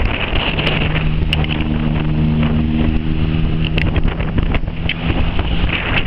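Motorcycle riding at highway speed: wind buffeting the handlebar-mounted microphone over the running engine. A steady droning tone comes in about half a second in and fades out near the end.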